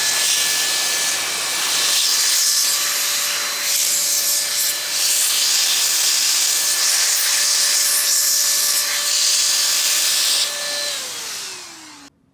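Handheld electric air duster running steadily, a motor whine over rushing air, blowing dust out of an open laptop. Near the end the motor winds down with a falling whine and stops.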